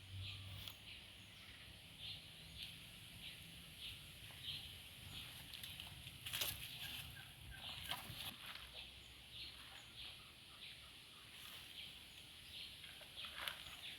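A bird calling over and over in short, high, evenly spaced notes, a bit less than two a second, with a few sharp knocks now and then.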